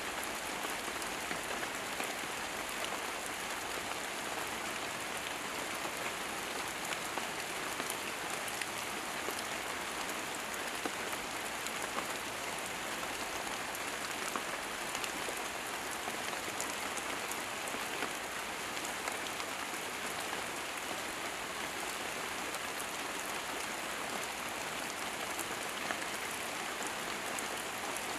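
Steady rain falling on foliage, with sharper taps of single drops scattered through it.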